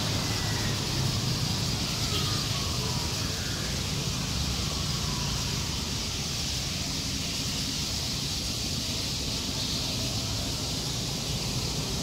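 Steady low rumble of street traffic with the high, continuous twittering of a large flock of swallows over it, and a few faint separate chirps in the first few seconds.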